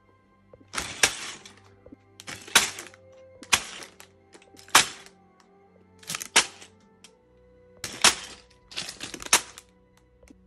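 Sealed plastic bags of Lego bricks being set down one after another on a table, each a short crinkle and rattle of loose pieces, about seven times.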